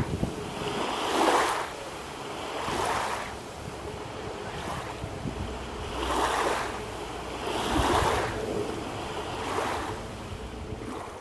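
Small lake waves lapping and splashing at the shore, swelling again about every one and a half seconds, with light wind rumble on the microphone.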